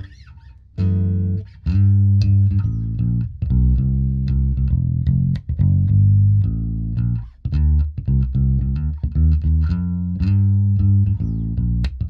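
Electric bass played fingerstyle through a small 100 W hybrid bass combo with a 10-inch speaker and tweeter, heard raw through a studio microphone. It plays a line of deep notes with sharp string attacks, with a short break right at the start and another a little past halfway.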